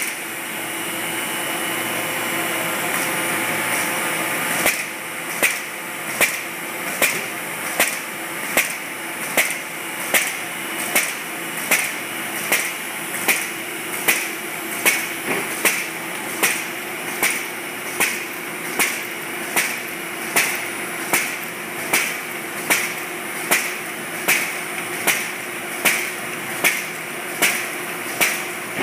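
Automatic folder-gluer machine running with a steady whir. About five seconds in, a sharp clack starts and repeats evenly about every three-quarters of a second as the machine cycles.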